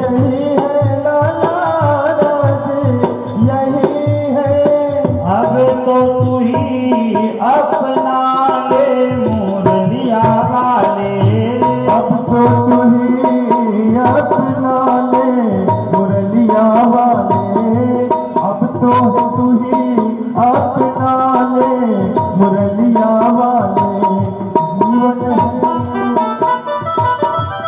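Devotional Hindu bhajan music: tabla keeping a steady rhythm under a melodic line, with no clear words.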